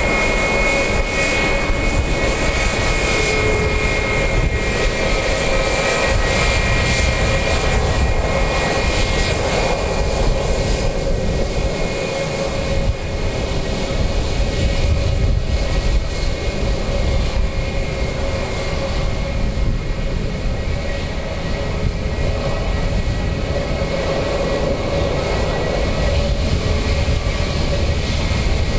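Jet engines of an Airbus A321 airliner at taxi power as it rolls past: a steady rumble with a high fan whine over it. The whine is strongest at first and grows fainter after about ten seconds as the jet moves on.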